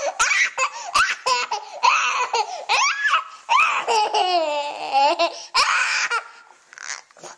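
A small child laughing and squealing in high-pitched bursts, with a few short knocks.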